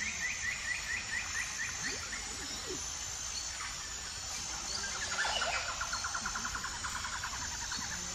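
Outdoor nature ambience: a steady high insect drone with two runs of rapid repeated chirps. The first run ends about two seconds in, and a lower, faster run comes in about five seconds in and goes on to near the end.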